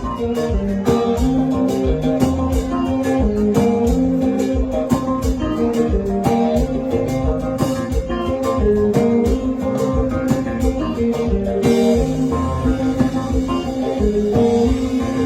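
Band music with a lead guitar playing a solo of quick plucked notes over a steady beat.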